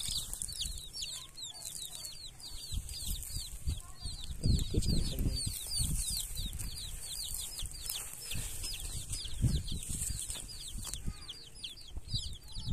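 A group of young chicks peeping continuously, a rapid run of short, high, falling cheeps, several a second. Bursts of low rumble come about four to five seconds in and again around nine seconds.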